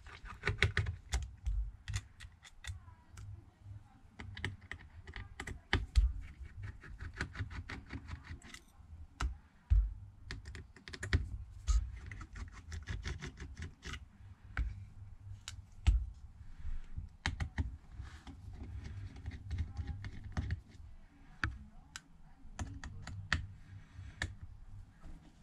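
Irregular small clicks and taps of a precision Phillips screwdriver working out the tiny screws of a smartphone's plastic back plate, with occasional louder knocks of tools and parts being handled on the bench.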